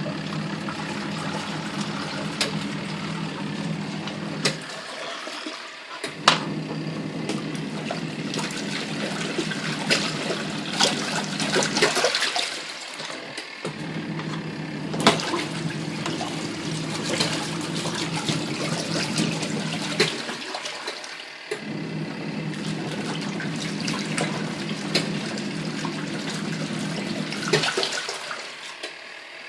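Superbrite 7.2 kg twin tub washing machine agitating a load in its wash tub: the wash motor hums for about five to seven seconds at a time and stops briefly three times, as the wash timer reverses the pulsator, while water sloshes and splashes throughout.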